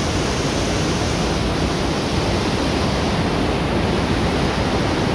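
The Rhine Falls, a large river waterfall, pouring: a loud, steady rush of falling water with no breaks.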